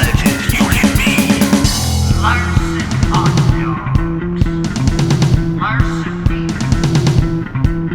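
Rock band playing an instrumental passage: guitar, bass and drum kit on a steady beat, with the part changing about two seconds in.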